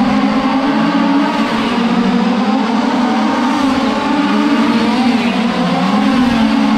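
Several 1/5-scale RC dirt oval cars racing together, their small two-stroke gas engines buzzing, the overlapping pitches rising and falling as the cars throttle down the straights and lift into the turns.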